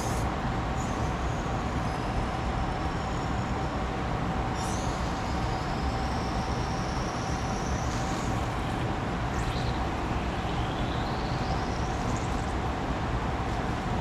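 A steady machine drone with a constant mid-pitched hum, and a few faint high squeaks gliding up and down over it.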